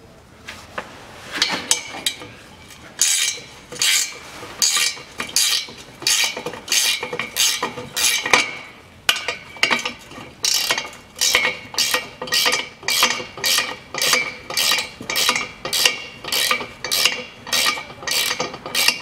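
Ratchet wrench clicking in quick repeated strokes, speeding up to about two a second, as a nut is run off a bolt at an exhaust pipe joint.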